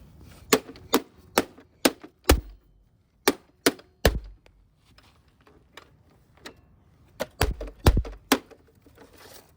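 Repeated sharp blows striking a Trifo robot vacuum's housing as it is smashed and cracking apart: a quick run of five strikes, three more about a second later, then another three near the end, some landing with a heavy thud.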